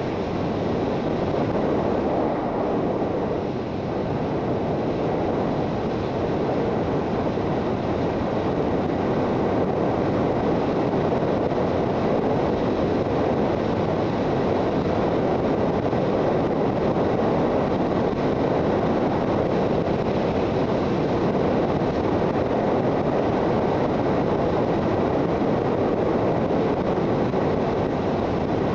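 Steady wind rush and running noise of a Suzuki GSX650F motorcycle riding at an even speed, its inline-four engine running under the wind on the microphone.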